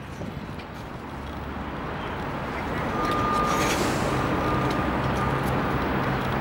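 A motor vehicle's engine running close by, with a steady low rumble and street noise. It grows louder over the first three seconds, then holds steady, and a thin high tone joins it about halfway through.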